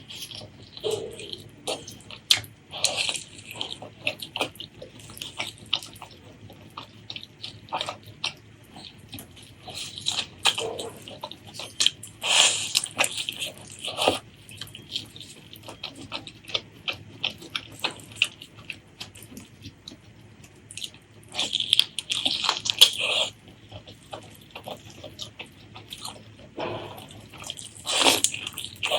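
Close-miked wet chewing and lip-smacking of spicy pork leg curry with rice, a dense run of irregular mouth clicks with a few longer, louder wet bursts, the loudest about 22 seconds in.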